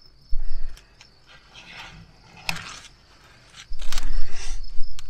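Rustling and bumping handling noise from a hand-held phone, in two loud bursts with a few sharp clicks, over a steady high chirring of crickets.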